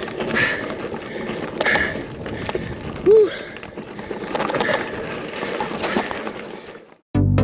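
Cyclist pedalling up a steep climb: wind and riding noise with the rider's hard breaths about every second and a half, and one short, loud, rising-then-falling tone about three seconds in. Near the end the sound cuts off abruptly and electronic dance music with a steady beat starts.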